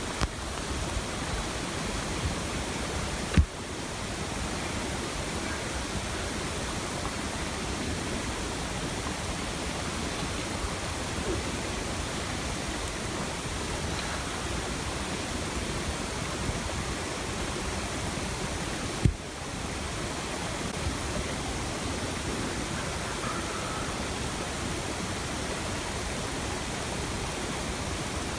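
Steady rushing noise with no tone in it, broken by two sharp clicks, one about three seconds in and another about nineteen seconds in.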